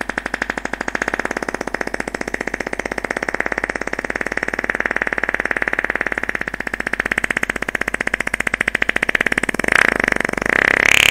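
A long fart with a fast, steady rattling flutter. About ten seconds in it turns brighter and louder.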